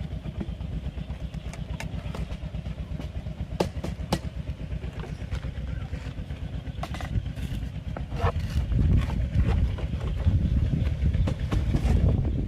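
A small engine running steadily, getting louder about two-thirds of the way through, with scattered sharp knocks.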